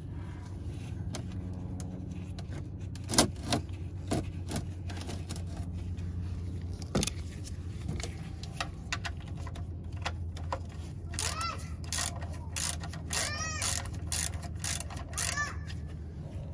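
A few sharp clicks and knocks as the oil drain plug and tools are handled under the car, over a steady low hum.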